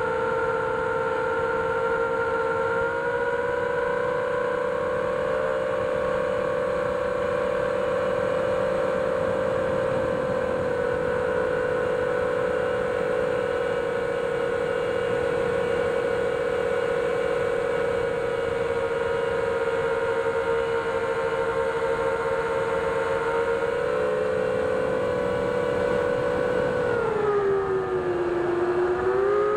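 FPV quadcopter's brushless motors and propellers whining at a steady pitch in flight, recorded on board by the DJI Action 2 mounted on the quad. Near the end the pitch sags and climbs again as the throttle is eased off and brought back up.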